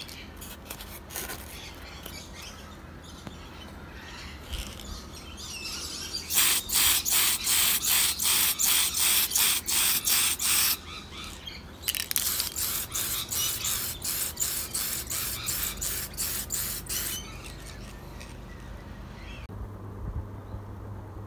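Tamiya aerosol spray can spraying clear coat in rapid short hissing bursts, about four a second, in two runs of several seconds each.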